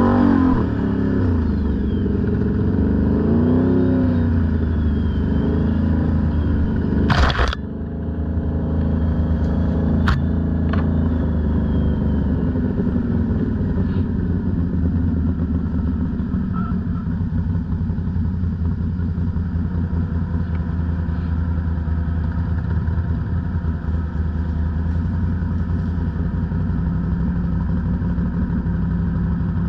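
ATV engine running, its pitch rising and falling with the throttle for the first few seconds, then pulling at a steadier speed. A single sharp knock or scrape comes about seven seconds in, and a lighter click follows a few seconds later.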